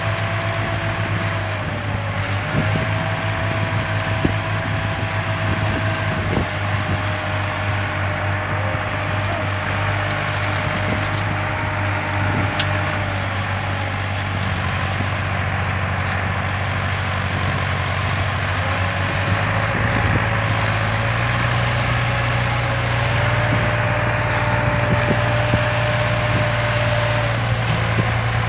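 Two farm tractors' diesel engines, a New Holland 3630 and a Swaraj 960 FE, running hard together as they tow a heavily loaded sugarcane trailer out of the field. The engine note steps up slightly about two-thirds of the way through, and dry cane trash crackles under the tyres.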